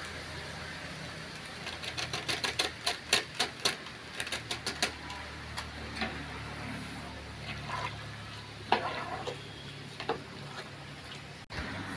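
Metal ladle clicking and scraping against an aluminium cooking pot as spice powder is stirred in: a quick run of light clicks for about three seconds, then scattered taps.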